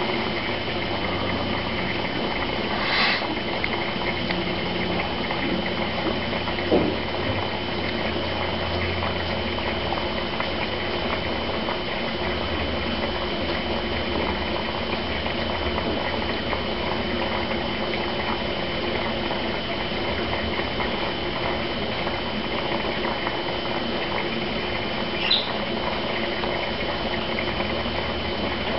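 Aquarium filter running: steady bubbling and trickling water, with a thin steady high tone over it.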